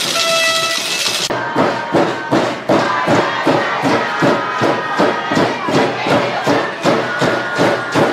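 A held chord of steady tones cuts off abruptly about a second in, and music with a heavy, steady beat of about two beats a second takes over.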